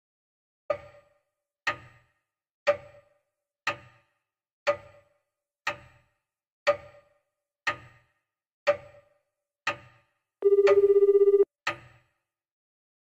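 Steady clock-like ticking, one sharp tick about every second. About ten seconds in, a telephone ringback tone sounds once, a steady buzzing tone lasting about a second, as an outgoing mobile call starts to ring.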